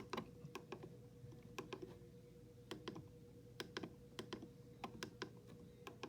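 Buttons on a Midland WR120 weather radio pressed over and over while the alarm time is set, faint sharp clicks at uneven spacing, often in quick pairs. A faint steady hum runs underneath.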